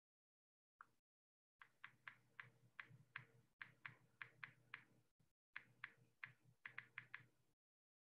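Faint computer keyboard typing heard through a video-call microphone: a run of quick, unevenly spaced key clicks over a low hum, with the audio cutting in and out.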